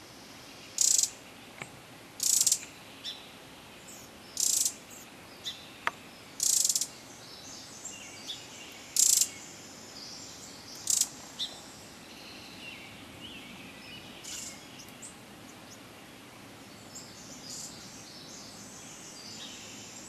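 Winter wren calls: about six short, harsh, high notes, one every two seconds or so, then only faint high twittering after about twelve seconds.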